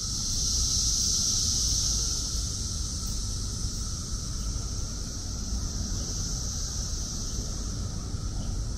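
Brood X periodical cicadas in a steady, high-pitched, unbroken chorus from the trees, with a fainter lower-pitched drone under it. A low rumble of wind on the microphone runs beneath.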